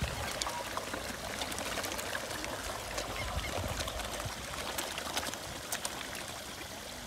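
Water trickling and splashing at a koi pond: a small waterfall running, with scattered small splashes from koi crowding at the surface for food.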